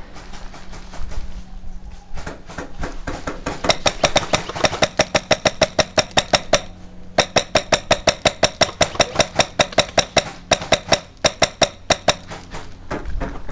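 Airsoft gun firing a long string of rapid shots, about five sharp cracks a second, with a short break partway through.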